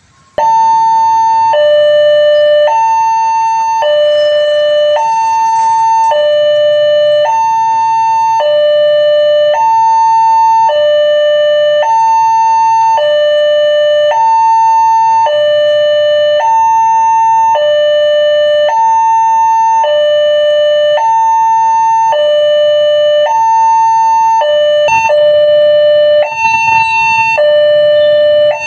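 Railway level-crossing warning alarm: a loud electronic two-tone siren that starts suddenly about half a second in and switches between a high and a low tone about once a second, the signal that a train is approaching and the crossing barrier is closing.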